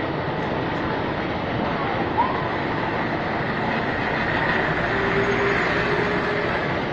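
Fire trucks' engines running, a steady loud rumble and hiss of street noise, with a brief sharp sound about two seconds in.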